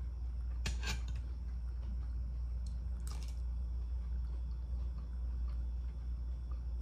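Metal spoon clinking and scraping against a ceramic bowl, twice: about a second in and again about three seconds in. A steady low hum runs underneath.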